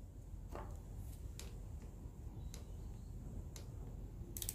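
Faint, scattered clicks of a ratcheting torque wrench turned in short strokes while snugging down a fastener on a Cummins common-rail injector, with a quick run of ratchet clicks near the end.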